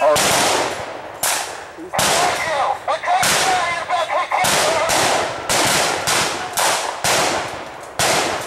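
Blank-fire rifle shots in a staged firefight. Single shots come irregularly, about one every half second to a second, each with a long echo dying away through the woods.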